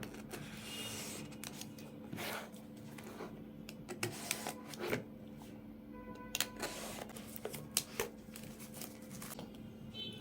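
Smartwatch box being opened and unpacked by hand: irregular rustling and sliding of the packaging with light clicks and taps, over a steady low hum.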